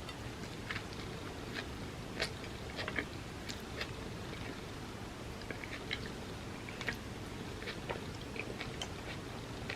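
A person chewing and biting food close to the microphone, with irregular small clicks and crunches of the mouth and food.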